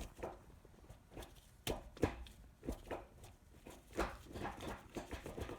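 Mazda RX-8 six-speed gear lever, fitted with a new brass shifter collar, being pushed down and moved through the gates: a string of irregular light clicks and clunks. The shifter is locking out of fifth and sixth gear.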